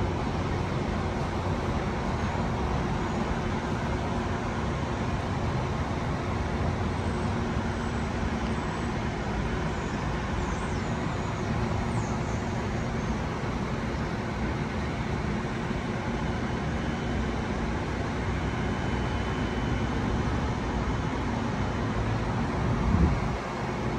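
Steady rumble of vehicles running, with a couple of louder knocks near the end.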